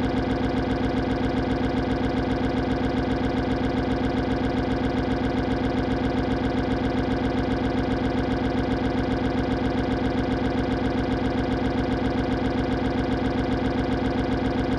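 Cartoon stomach-growl sound effect: a continuous, even rumble with a rapid flutter, unchanging throughout.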